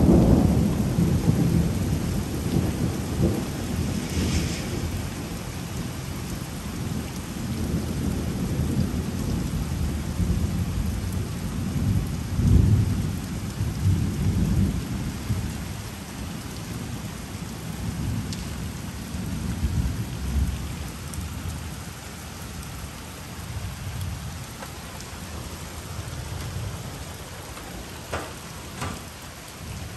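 Thunder rolling and rumbling over steady heavy rain. The loudest roll is fading at the start, further rumbles swell about twelve to fourteen seconds and twenty seconds in, and the thunder dies down to the rain toward the end.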